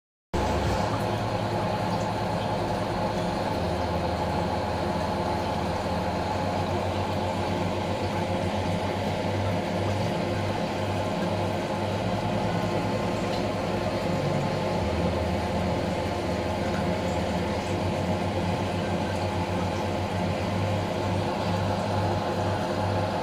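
Steady mechanical hum of reef aquarium pumps, its low tone shifting now and then.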